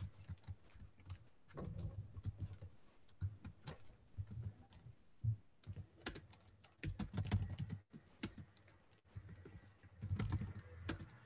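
Typing on a computer keyboard: several short runs of quick keystrokes with pauses between them.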